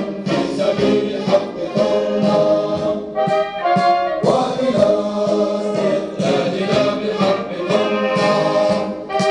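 Music: brass instruments playing a tune with voices singing along.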